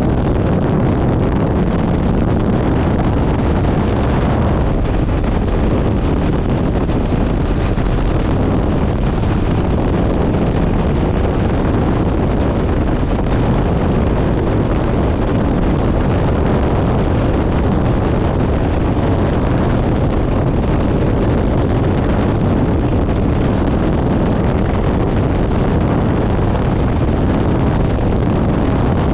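Helicopter in flight: steady engine and rotor noise mixed with wind rushing over the camera microphone.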